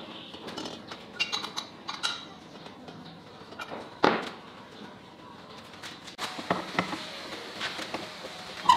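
Metal clinks and knocks from a hydraulic bottle jack being handled and fitted into a steel frame, with a sharper knock about four seconds in and a loud metallic click near the end.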